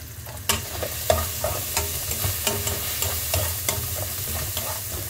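Metal spatula scraping and clinking in a wok as shallots, chili and dried anchovies sizzle in hot oil, with irregular strokes about every half second over a steady sizzle.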